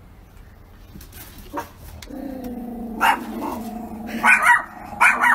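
Small dogs growling and barking: a steady low growl starts about two seconds in, and from about three seconds short sharp barks break over it, several in quick succession near the end.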